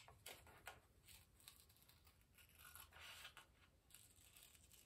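Faint, irregular snips of scissors cutting through paper.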